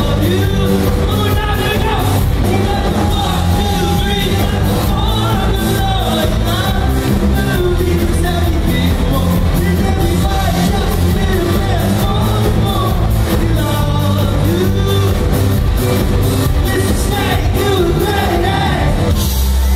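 Live indie pop band heard from the crowd in a theatre: a male singer over bass guitar, banjo and keyboards with a steady beat. The music stops abruptly near the end.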